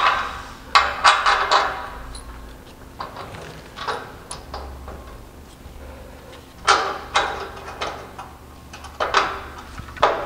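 Ratchet wrench clicking in short bursts with metal clinks while a shock absorber's upper mounting nut is tightened on a steel chassis.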